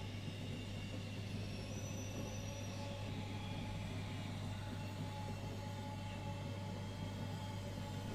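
A steady low hum with a few faint steady tones above it, unchanging throughout.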